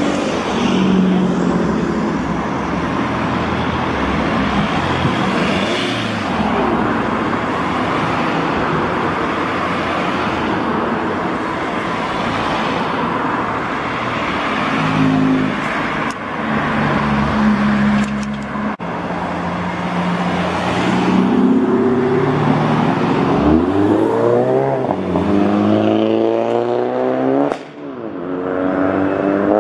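Tuned cars driving past one after another, with engine and tyre noise throughout. Near the end one car accelerates hard: its engine revs climb twice in pitch, with a short lift for a gear change between them.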